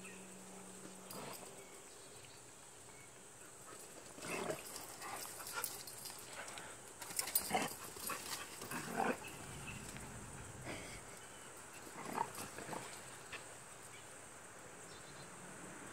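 Two dogs playing, with short barks in several bursts through the middle of the stretch.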